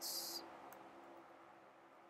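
Low room tone with a faint steady hum, just after the hissing end of a spoken word, and a single faint click under a second in.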